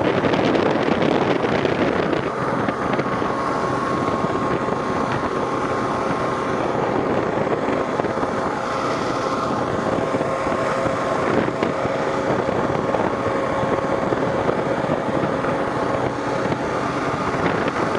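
Wind rushing past a helmet with its visor cracked open, over the steady drone of a Kawasaki KLR650's single-cylinder engine at cruising speed. A steady hum comes in a couple of seconds in and fades near the end.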